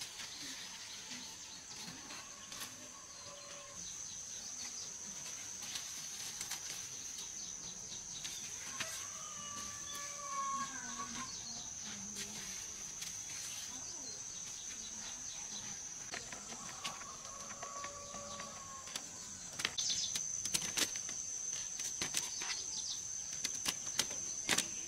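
Steady high-pitched insect drone in a garden, with faint drawn-out bird calls three times. From about 20 seconds in come quick crackles and snaps of leaves and vines being handled as cucumbers are picked.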